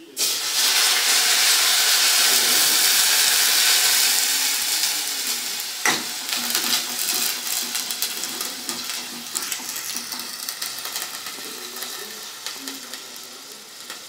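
Tomato sauce poured into a pan of hot olive oil and browned garlic: a loud sizzle starts at once, then slowly dies down as the sauce is stirred with a spatula. A single knock of the utensil against the pan comes about six seconds in.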